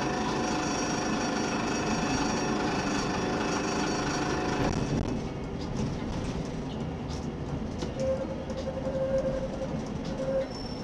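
Tram running on street rails: its wheels squeal with several steady high tones for about the first five seconds, then give way to a rumble with scattered clicks over rail joints and points. A lower single squeal tone returns for a couple of seconds near the end.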